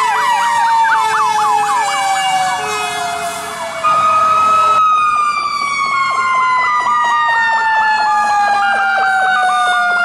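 Fire truck sirens: a mechanical siren winds down in one long falling tone while an electronic siren yelps rapidly over it. About five seconds in it cuts to another truck, again with a mechanical siren's falling tone under an electronic siren warbling in quick steps.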